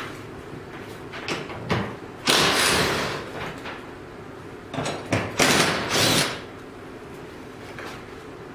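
A tool working a fender bolt loose on a car's body: two bursts of mechanical noise, each under a second, with a few light clicks around them.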